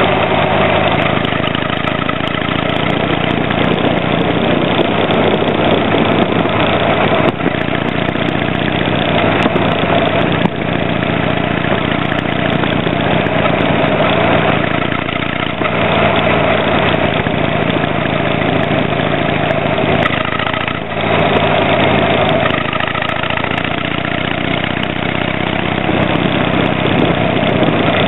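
Harley-Davidson Sportster 883 Hugger's V-twin exhaust, through a tapered muffler fitted with a baffle insert, running steadily while the bike is ridden. The engine note dips briefly a few times along the way.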